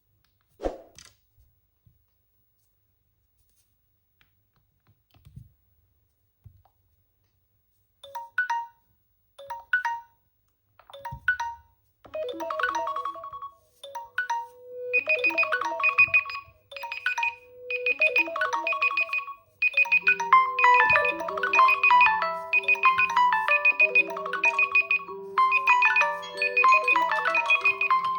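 Smartphone alarm and timer tones from Samsung, OPPO and iPhone phones. After a single click near the start, separate chimes sound about a second apart. More repeating melodies then join in and overlap, until several alarm tunes play at once, with a low bass pattern entering about two-thirds of the way in.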